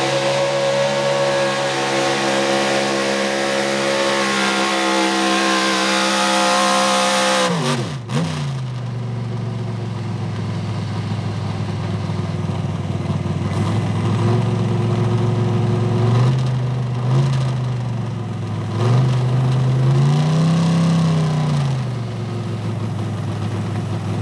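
440-cubic-inch small-block V8 in a 4x4 pickup running at wide-open throttle under the load of a weighted pulling sled, its pitch holding high and rising slightly, then dropping steeply about eight seconds in as the throttle is lifted at the end of the pull. It then idles low with a few short revs, the last a longer rise and fall.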